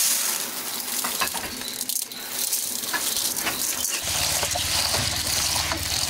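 Barley groats pouring into a stainless steel bowl, a dense hiss of grains rattling and pattering on the metal. About four seconds in, it changes to water running from a tap into the bowl as the grain is rinsed by hand.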